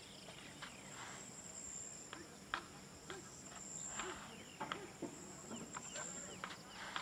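Faint outdoor ambience: insects droning steadily in a high band, with scattered short clicks and chirps.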